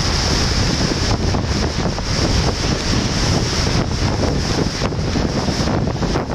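Strong typhoon wind buffeting the microphone with a heavy, steady rumble, over the surf of storm waves breaking against the shore.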